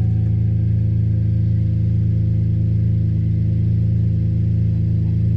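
2021 GMC Canyon's engine idling steadily just after a thermostat replacement, warming up with antifreeze circulating through the cooling system.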